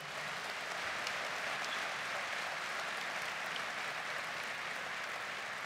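Large audience applauding, a steady even clapping that eases off slightly near the end.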